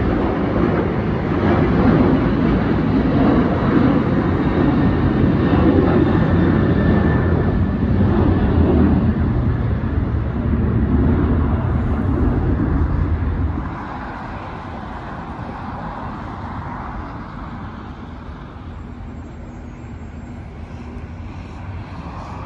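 Jet engines of an Alaska Airlines airliner climbing out after takeoff: a loud, steady, deep rumble. About 14 seconds in it drops suddenly to a quieter, steady airport rumble.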